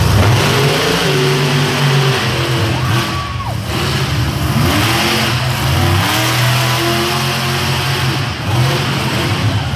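Monster truck engine revving up and down, its pitch climbing and dropping several times.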